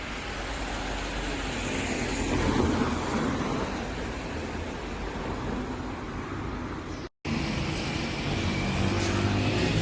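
Road vehicle noise: a steady rush of traffic. About seven seconds in, a brief break gives way to a lower, steadier engine hum.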